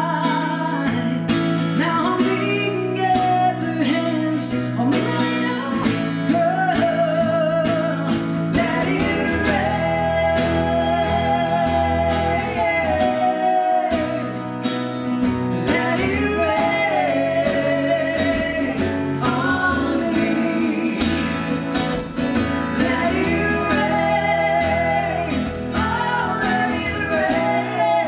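Live acoustic performance: a woman singing, with held notes and vibrato, over two acoustic guitars.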